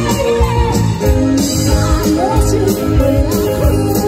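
Live band music: a woman singing lead into a microphone over amplified electric guitars, bass guitar and drums, with a steady drum beat and cymbals.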